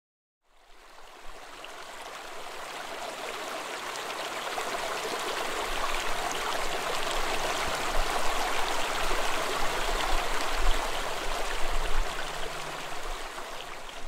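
Small mountain stream running after a night of rain: the water fades in about half a second in and grows louder over the next several seconds, then rushes steadily.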